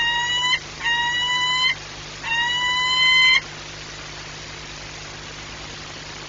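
Peregrine falcon giving three drawn-out, slightly rising wailing calls, each about a second long with short gaps between them, a vocal bonding display at the nest ledge. The calls stop a little over three seconds in, leaving a steady low hum.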